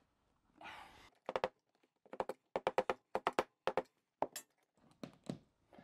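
Plastic sleeve of a drywall toggle anchor being pushed along its plastic strap until it is tight against the wall, giving a run of sharp, quick clicks in short bunches after a brief rustle.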